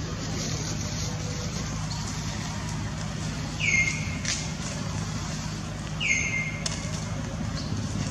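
Baby macaque giving short high calls, each sliding down into a briefly held tone, about every two and a half seconds, each followed by a sharp click. A steady low hum runs underneath.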